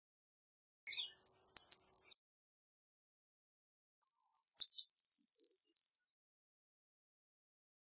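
Eurasian blue tit singing: two song phrases, about a second in and again about four seconds in. Each phrase is a few thin, high notes followed by a fast trill that steps down in pitch.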